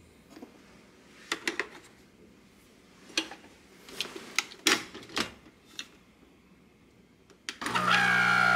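An illy capsule coffee machine being loaded: a series of plastic clicks and clacks as the capsule goes in and the lid shuts. About seven and a half seconds in, the machine's pump starts with a loud, steady buzzing hum as it begins to brew.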